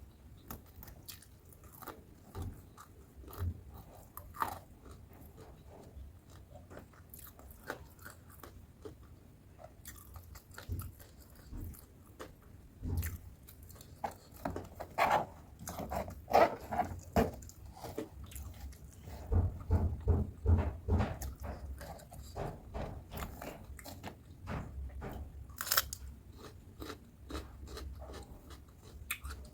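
Close-miked eating of crispy battered fried tempeh and raw cucumber: crunchy bites followed by chewing, with the loudest run of crunches about halfway through.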